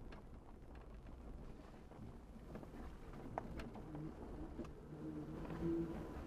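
Truck driving slowly over a rough dirt trail, heard from inside the cab: a steady low engine rumble with scattered knocks and rattles, and a brief louder hum near the end.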